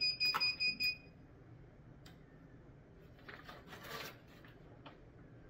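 Heat press timer alarm beeping rapidly in a high tone to signal that the press time is up; it cuts off about a second in. Faint paper rustling and small knocks follow as the press is opened and the transfer paper is handled, a little louder around three to four seconds in.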